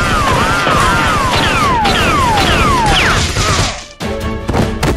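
Loud dubbed-in battle sound effects: a dense crackle of rapid toy-gun fire with a few falling whistling zaps, music behind. It cuts off about four seconds in.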